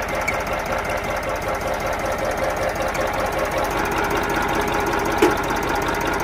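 Massey Ferguson 1035 DI tractor's three-cylinder diesel engine idling steadily with a rapid, even clatter, freshly started after standing unused for over a month. A single short tap is heard about five seconds in.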